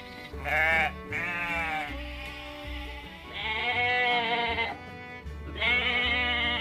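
Sheep and goats bleating: four long, wavering bleats, two back to back early, one around the middle and one near the end, over background music.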